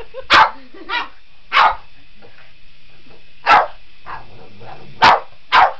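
A Boston Terrier barking: about six short, loud barks at uneven spacing, two of them close together near the end.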